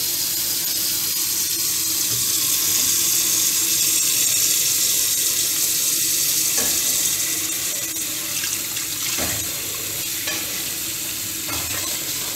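Kitchen tap running into a steel pot of crabs, the water stream splashing steadily. From about halfway on, a few faint knocks and splashes as a hand moves the crabs around in the water.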